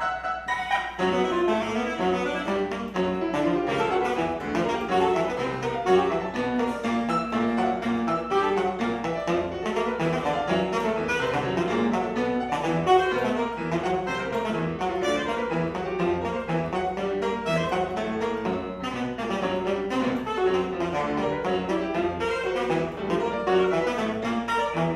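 Alto saxophone and piano playing contemporary classical chamber music together, a busy passage of many quick notes.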